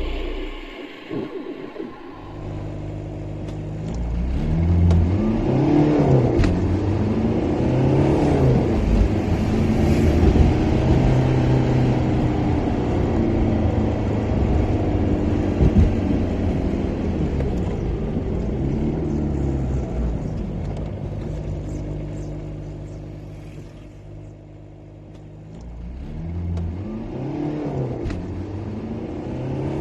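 Car engine sound effect for a Range Rover, accelerating and revving through the gears. The pitch climbs and drops again and again, goes quieter about three-quarters of the way through, then picks up again.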